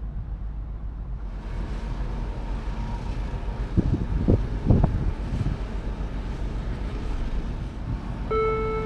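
Car ferry under way: a steady low rumble with wind noise that comes in about a second in, and a few short low gusts in the middle. Near the end an onboard chime melody starts up, leading into the ship's arrival announcement.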